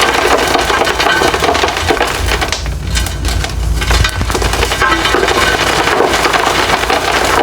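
Slabs of reformed gym chalk being crushed and crumbled, a steady dense run of crunching and crackling.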